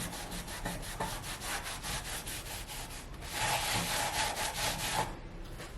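A cloth scrubbing a copper fireplace surface with lemon and salt, in quick back-and-forth strokes, several a second. The scrubbing gets louder and more continuous a little past the middle, then eases off near the end.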